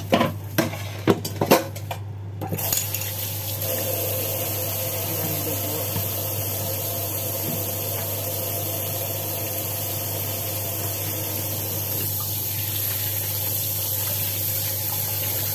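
A few clanks and knocks from handling fish in a stainless steel bowl, then from about two and a half seconds in a kitchen tap running steadily.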